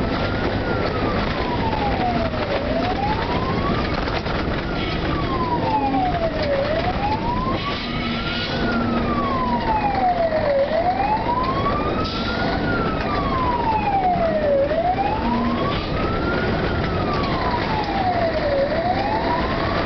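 Fire engine siren wailing, a slow rise and fall repeating about every four seconds, over the truck's engine and road noise, heard from inside the moving vehicle.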